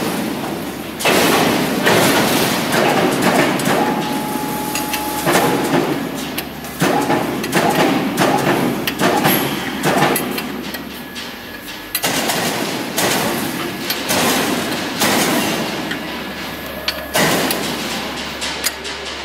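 Factory workshop noise: a run of metal knocks and clanks, some sharp and some dull, over a busy clattering background that comes and goes in stretches of a few seconds.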